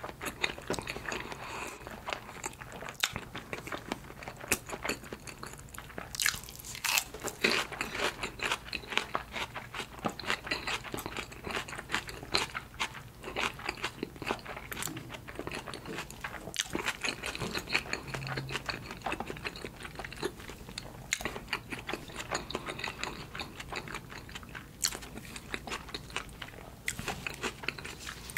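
Close-miked chewing and mouth sounds of someone eating salmon sushi: a steady run of small clicks and smacks as the rice and fish are bitten and chewed.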